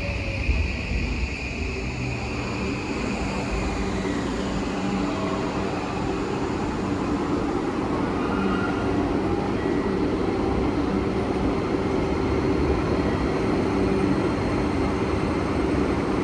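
Electric train pulling into a station platform, its running noise growing steadily louder, with a few steady tones over the rumble.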